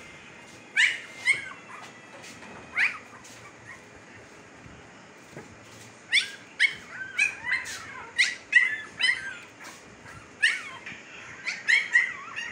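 Fifteen-day-old Siberian husky puppies giving short, high-pitched yelps, each falling in pitch: a few scattered ones at first, then a rapid run of a dozen or so in the second half.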